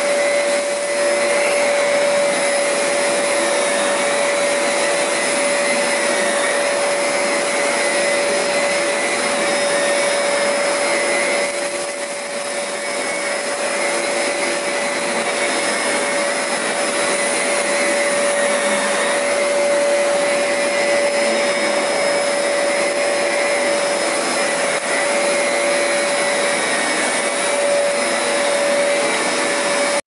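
ZeroG floating vacuum running with its motorized power head pushed back and forth over carpet: a steady motor whine over a rush of suction air, briefly dropping a little about twelve seconds in.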